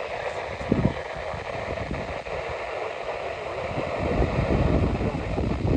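Wind buffeting the microphone over a steady hiss, the low rumble growing stronger about four seconds in.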